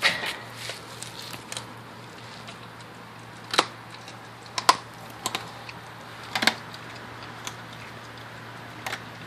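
German Shepherd crunching through a raw chicken drumstick bone: sharp, irregular cracks, about ten of them, coming every second or so with gaps.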